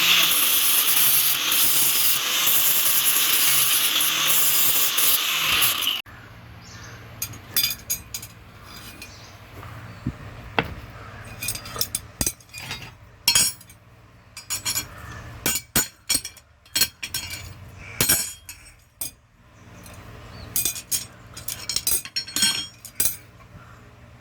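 A power tool grinding on metal runs steadily and loud, then cuts off suddenly about six seconds in. After that come scattered light metallic clinks and taps with a brief ring, steel tools being handled.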